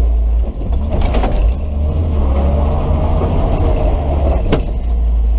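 1977 Toyota Land Cruiser FJ's engine pulling at low speed while the truck crawls over brush and a small tree off-road, heard inside the cabin, with rattling from the body and a sharp knock about four and a half seconds in.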